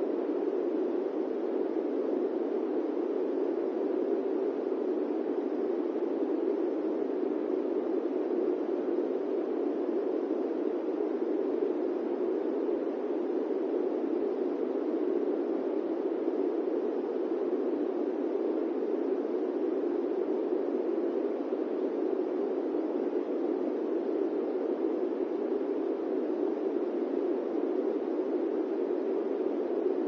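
A gentle fan's steady rush of air, even and unchanging throughout, deep rather than hissy.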